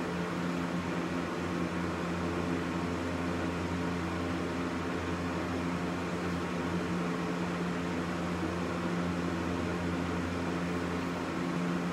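Steady background hum with a hiss beneath it: several low tones held without change throughout.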